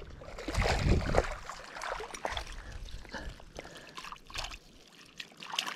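Hooked trout splashing at the water's surface and water sloshing as the fish is played in and netted, with scattered short knocks and splashes.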